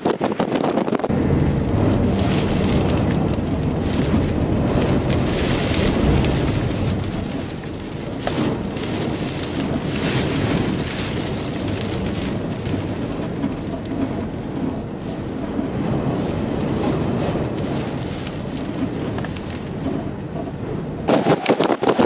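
Severe thunderstorm's gust-front winds rushing and buffeting the microphone in a steady, noisy rumble.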